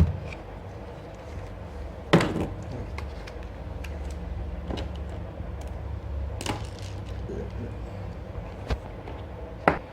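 Several sharp knocks and clacks of hard objects being handled and set down, about five in all, the loudest about two seconds in and near the end, over a low steady hum.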